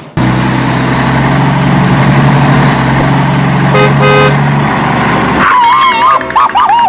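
Dubbed vehicle engine sound running steadily, with two short horn toots about four seconds in; from about five and a half seconds a wavering, warbling high tone takes over.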